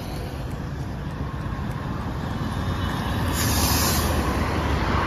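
Diwali sky rocket (firework) igniting and whooshing upward, a rushing hiss that grows louder and turns sharper and brighter about three and a half seconds in.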